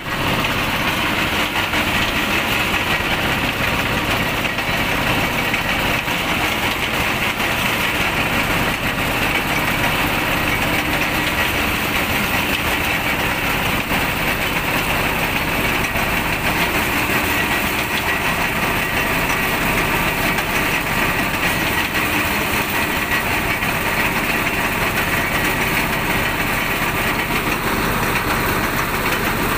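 Motorized sugarcane juice crusher running steadily, its motor driving the rollers as cane stalks are fed through and crushed.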